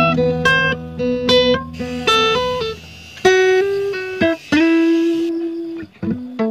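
Background music: a guitar picking a melody of single notes and short chords, each note struck sharply and left to ring.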